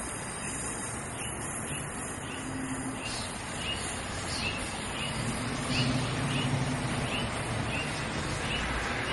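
SEPTA Silverliner IV electric railcars running away along the track, a steady rumble with a low hum that swells midway. A bird calls in short falling chirps every half second or so, from about three seconds in.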